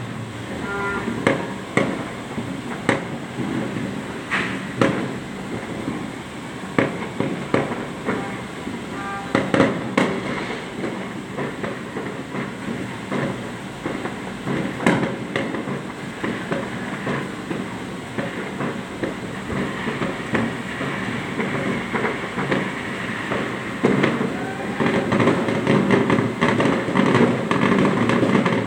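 New Year fireworks and firecrackers going off all around: steady crackling and popping, with sharper bangs scattered through, growing louder and busier in the last few seconds.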